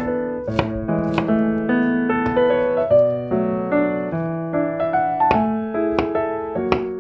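Background piano music, with a few sharp knife taps on a bamboo cutting board under it.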